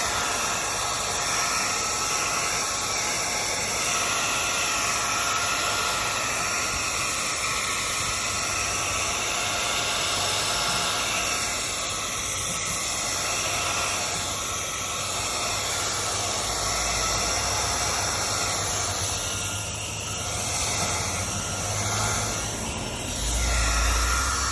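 Heat gun blowing a steady rush of hot air, warming the 3M double-sided tape so it will stick; the tone of the rush shifts slightly as the gun is moved about.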